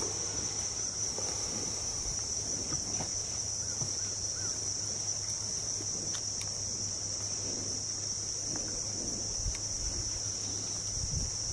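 Steady high-pitched drone of an insect chorus, one unbroken buzzing band with no pauses.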